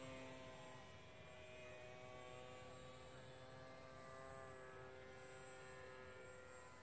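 Faint, steady drone of a flying Mini Funtana model airplane's motor and propeller, its pitch drifting slowly as the plane flies.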